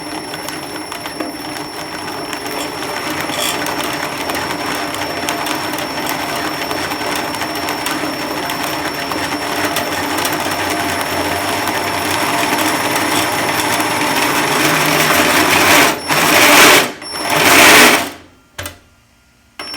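Homemade RC snowmobile's battery-powered drive motor and track running in a break-in run, a steady mechanical whirring that slowly speeds up and grows louder. Near the end it surges twice, louder, then cuts off suddenly.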